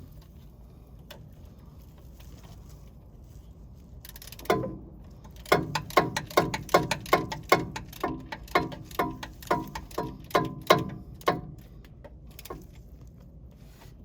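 Hand wrench tightening the starter motor's mounting bolts from under the vehicle: a quick run of sharp metallic clinks with a short ring, about two or three a second, starting about four and a half seconds in.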